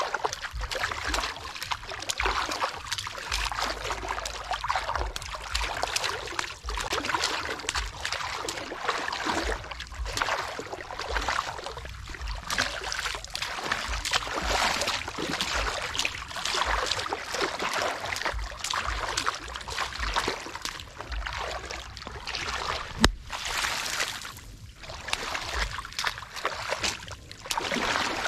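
Water sloshing and splashing in uneven surges as a fishing net is worked through shallow pond water. There are low bumps throughout and one sharp knock about two-thirds of the way through.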